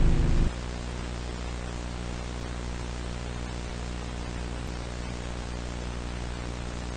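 A loud, distorted low burst cuts off abruptly about half a second in. It leaves steady static hiss with a low electrical hum under it.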